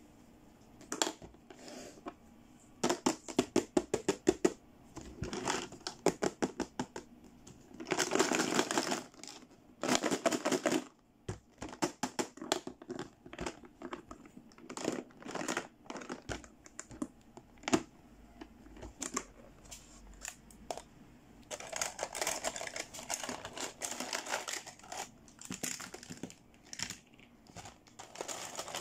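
Hard plastic toy pieces clicking and clattering as a pink plastic carry case is handled and opened and small plastic doll accessories are taken out. There is a fast run of sharp clicks about three seconds in, and the clattering thickens in the last third.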